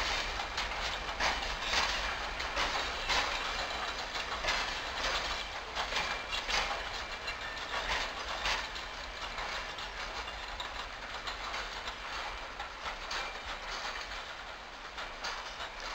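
A rake of open-top freight wagons rolling past during shunting, the wheels clacking irregularly over rail joints. The clatter gradually grows fainter.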